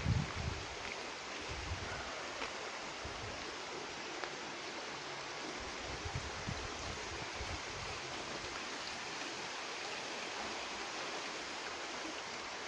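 Steady rushing of water in a stream channel, an even hiss, with a few low buffets of wind on the microphone near the start.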